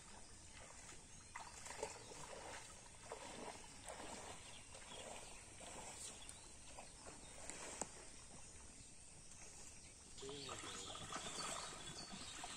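Faint outdoor background of distant voices and animal calls, louder for the last couple of seconds.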